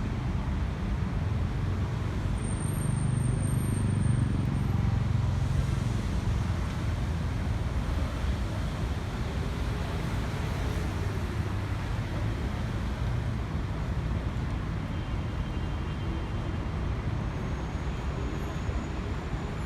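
Steady road traffic noise: the low rumble of cars and buses passing on a busy city street, swelling slightly a few seconds in.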